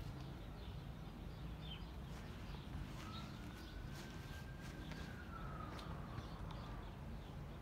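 Outdoor background with small birds chirping now and then over a low steady rumble, and a long faint whistling tone in the middle that rises a little and then falls away.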